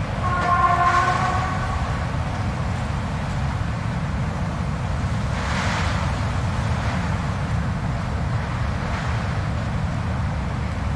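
Blizzard wind with a steady low rumble and a gust that swells and fades about six seconds in. Near the start a brief pitched howl is held for about a second and a half.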